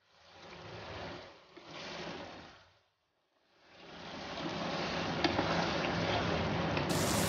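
Thick curry of mutton heart and potatoes sizzling and bubbling in a steel pot as a wooden spoon stirs it. It comes in two swells with the strokes at first, then after a short pause settles into a steadier, louder sizzle with an occasional click of the spoon against the pot.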